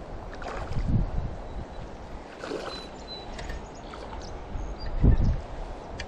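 Wind rumbling on the microphone over the rush of creek water, with two stronger gusts, about a second in and about five seconds in.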